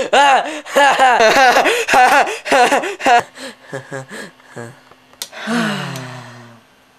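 A teenage boy laughing in quick rising-and-falling bursts, about three a second, which grow fainter after about three seconds; near the end the laughter trails off into a long breath of voice falling in pitch.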